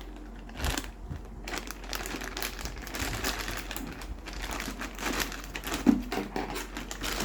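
Packaging crinkling and tearing as the seal is broken by hand: an irregular run of crackles and rips, with one sharper crack about six seconds in.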